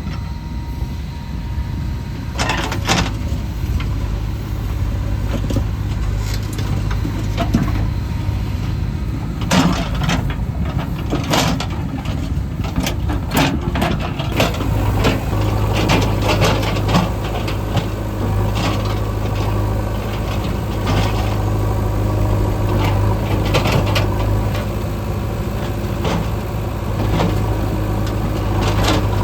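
Heavy diesel engine of a construction machine running steadily, its low drone growing stronger about halfway through, with scattered sharp knocks.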